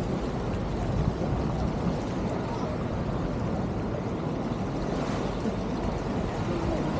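Beach ambience: surf washing ashore, with steady wind noise on the microphone.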